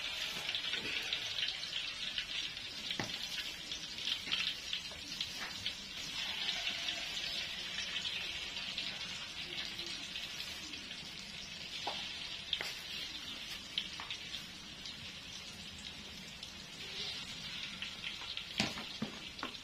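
Tofu fritters (perkedel tahu) deep-frying in hot oil in a steel wok: a steady crackling sizzle, with a few sharp clicks now and then.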